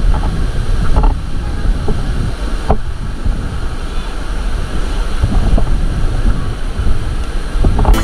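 Wind buffeting the microphone over the steady rush of a rocky river's rapids, with faint voices now and then.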